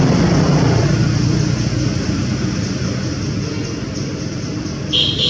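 Engine rumble of a passing motor vehicle, loudest at the start and fading over the next two seconds, under a steady high buzz. Near the end, a loud high-pitched pulsing sound starts.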